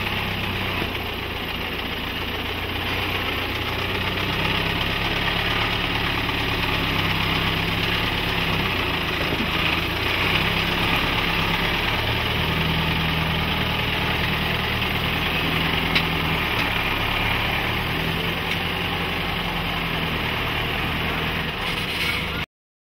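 Mercedes-Benz Unimog U 5023's four-cylinder diesel engine running steadily at low revs as the truck crawls over rocks. There is a single sharp click about 16 seconds in, and the sound cuts off abruptly near the end.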